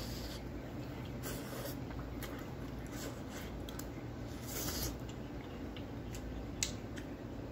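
Close-up eating sounds: a bite of soft macaroni and cheese taken off a plastic fork and chewed, with a few short wet mouth noises and a sharp click near the end, over a steady low room hum.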